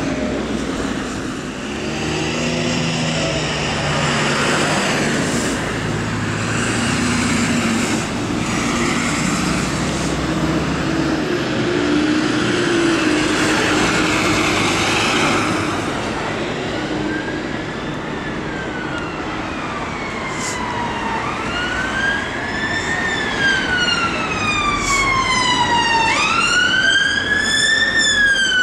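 Scania P280 fire engine's heavy diesel engine pulling away and passing close by. From about halfway on, an emergency-vehicle siren sounds a slow wail, rising and falling about every four to five seconds, and grows louder near the end as it approaches.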